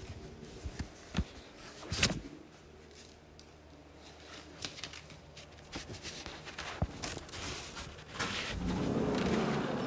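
Handling noise from a phone being carried while walking: scattered clicks and knocks, one sharper knock about 2 s in, then a steady rushing noise from about 8 s in.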